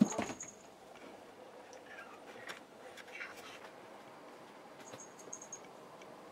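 A cat jumping up: a thud with claws scrabbling for about half a second at the start, the loudest moment. A few faint, short chirping mews follow about two to three and a half seconds in.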